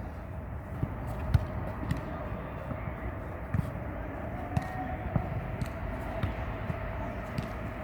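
Scattered light thuds of a jokgu ball bouncing and being kicked, over a steady faint hum and murmured voices.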